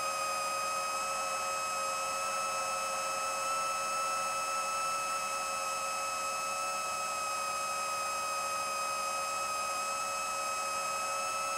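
Steady whine of an 8-inch FPV quadcopter's brushless motors (Racerstar 2514 1498KV) and HQProp 7040 propellers in smooth cruising flight: several pitches held nearly level at an even loudness, over a light hiss.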